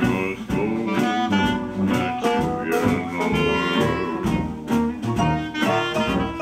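A small live jazz band plays 1920s–30s style swing: horn and reed melody lines over a steady beat from guitar, tuba and keyboard.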